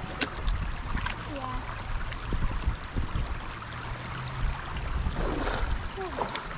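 A steady rush of flowing river water under a low, uneven rumble, with a few sharp clicks and faint distant voices.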